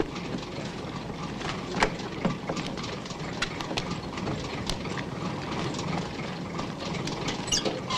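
An engine running steadily, with scattered knocks and clicks over it.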